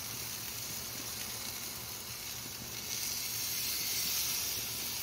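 Pork chops sizzling on a hot grill grate while honey mustard sauce is brushed onto them: a steady hiss that grows a little louder about three seconds in.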